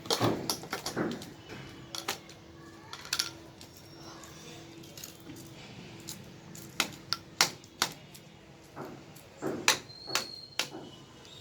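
UPVC pipes and plastic joint fittings knocking and clicking as they are handled and pushed together: irregular sharp clicks, with a few close together about seven seconds in and again near the end.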